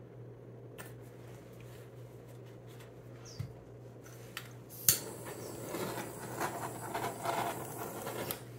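Handheld butane torch passed over wet acrylic pour paint: a sharp ignition click about five seconds in, then a steady hiss of the flame for about three seconds. Before it, a few faint taps of the paint cup being handled.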